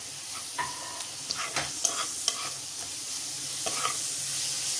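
Onion, tomato, garlic and ginger paste masala frying in oil in a kadai: a steady sizzle that grows slightly louder. The masala is being stirred, the utensil scraping and clinking against the pan several times.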